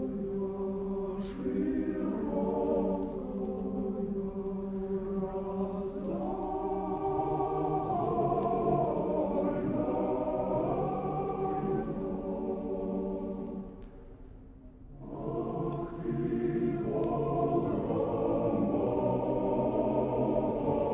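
A choir singing a slow chant in long, held chords. The singing dies down briefly about two-thirds of the way through, then a new phrase begins.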